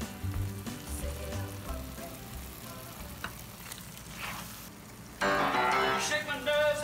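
A pan of tomato sauce sizzling on the stove, a steady hiss, under background music that thins out early and comes back loud with a sung vocal about five seconds in.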